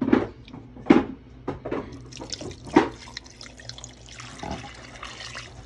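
Water poured from a clear plastic container into a pot of beef shanks and vegetables, splashing. There are a few loud splashes in the first three seconds and a steadier pour near the end.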